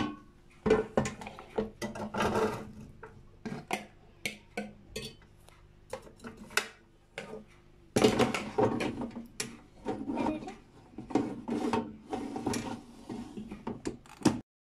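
Metal fork scraping and clinking against a plastic bowl as raw potato strips are tipped and pushed into an air fryer basket: a run of irregular clicks and scrapes.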